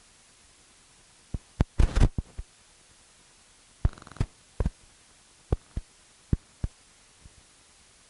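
A dozen or so sharp, irregular knocks and clicks of camera handling noise, with a dense cluster of bumps about two seconds in and another, with a brief ringing scrape, around four seconds. They stand out against a faint steady hiss.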